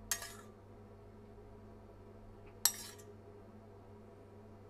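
A metal spoon clinking twice against a small stainless saucepan while sauce is spooned onto a plate: one clink right at the start and a sharper one a little over halfway through, each ringing briefly. A faint steady hum lies underneath.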